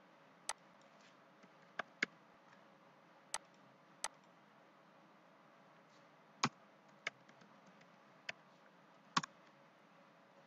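Computer mouse and keyboard clicks: about nine sharp single clicks, spaced irregularly, over a faint hiss.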